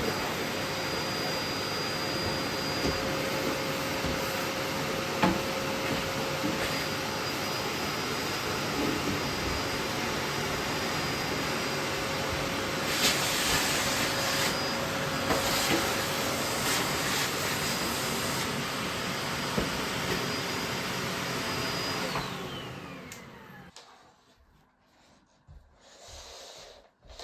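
Bosch BGS21X320 bagless vacuum cleaner running steadily, with a couple of stretches of louder hiss in the middle. Near the end it is switched off and its whine falls away as the motor winds down.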